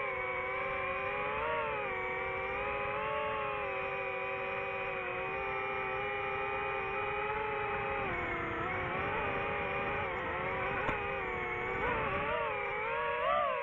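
DJI FPV drone's motors and propellers whining steadily in flight. The pitch bends down and up with the throttle, dipping about two thirds of the way through and wavering up again near the end.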